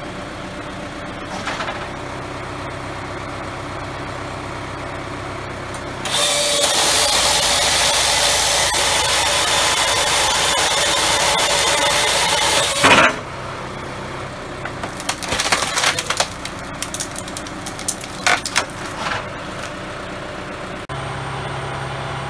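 Tractor-driven firewood processor: the machine hums steadily, then its saw cuts through a log for about seven seconds, ending in a sharp crack as the round breaks off. Scattered cracks and wood clattering follow as the round is split and the pieces fall.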